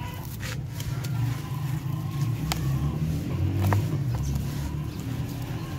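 Dry powdery sand poured onto dark crumbled dirt in a tub, falling as a soft gritty pour with a few sharp ticks of grains landing, over a steady low rumble.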